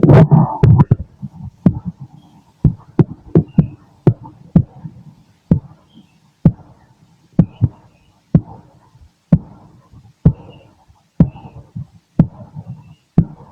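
Human heartbeat heard through a stethoscope: steady lub-dub thumps at about one beat a second, with a brief louder, noisier burst right at the start.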